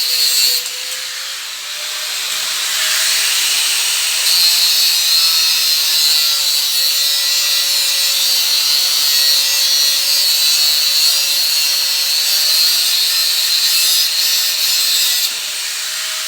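A small motor-driven tool running steadily, with a wavering whine under a high hiss. It gets louder about four seconds in and drops back near the end.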